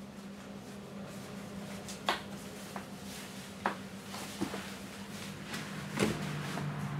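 Quiet tiled-room tone with a steady low hum, broken by a few short, sharp knocks and scuffs of people moving about, the clearest about two, three and a half, four and a half and six seconds in.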